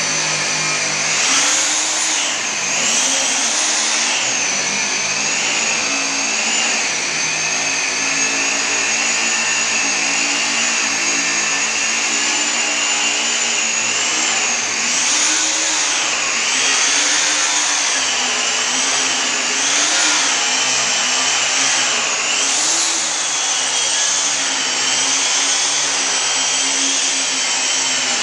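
Electric angle grinder with a polishing wheel running against a stainless steel handrail, a continuous high whine that wavers up and down in pitch as the wheel works the rail.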